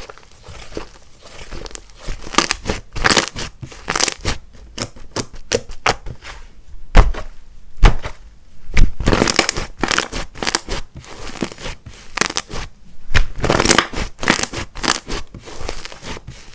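Hands squishing, stretching and pressing a clay-mixed slime: irregular sticky crackles, tearing sounds and small pops, with two sharper pops about halfway through.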